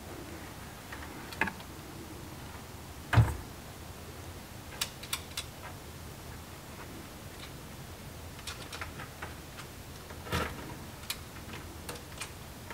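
Scattered light clicks and taps of bolts and hardware being handled and set into a mounting plate, with a heavier knock about three seconds in and another about ten seconds in.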